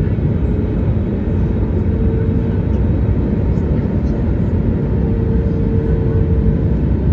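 Jet airliner cabin noise heard from a window seat beside the wing-mounted engine during descent: a steady, loud low rumble with a rush of airflow over it. A faint steady hum comes in about two seconds in, fades, and returns near the end.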